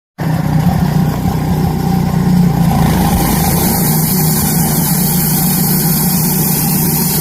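Wood-Mizer band sawmill's engine running steadily under the band blade, with a hiss that grows louder about three seconds in.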